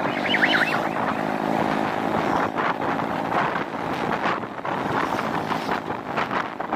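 Motorcycle engine running at cruising speed, with wind buffeting the microphone in gusts. A brief high chirping sound comes about half a second in.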